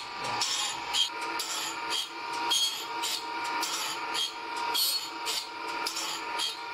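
Automatic saw-blade sharpening machine grinding a saw blade's teeth: the grinding wheel gives a rasping whine in a repeating stroke as it works from tooth to tooth.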